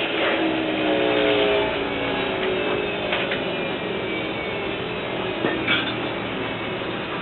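Toyota 22R inline-four engine running steadily on wood gas from the gasifier, driving a three-phase induction motor as a generator under load. Its note sags slightly in pitch during the first two seconds. A few light knocks come from hands working on the rig about three seconds in and again near five and a half seconds.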